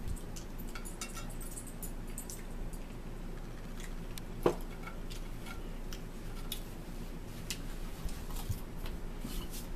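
Eating sounds at a table: scattered small clicks and crunches of chewing crackers and handling plates, with one sharper knock about halfway through, over a steady low hum.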